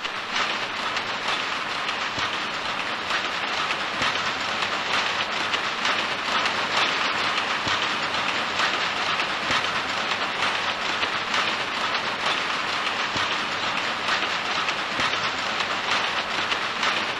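Weaving shed full of power looms running together: a loud, steady, dense mechanical clatter.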